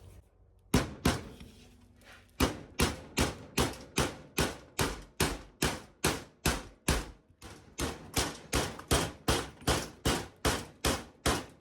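A hammer tapping a small steel pin into the clutch pedal of a 1972 VW Super Beetle pedal assembly. Two strikes come just under a second in, then a steady run of about three sharp taps a second.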